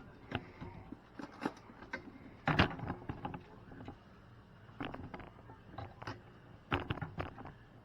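Scattered clicks and knocks of kitchen utensils being handled while a spoon is fetched, the loudest knock about two and a half seconds in.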